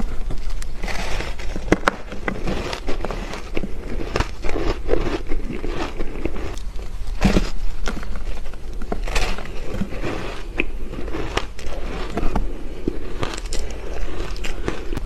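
Close-miked biting and chewing of a thick slab of ice with a green powdery coating: continuous crunching with many sharp cracks.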